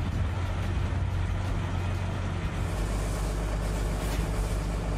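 Fire engine running steadily at the scene, a low drone, with a steady hiss over it that grows stronger in the second half.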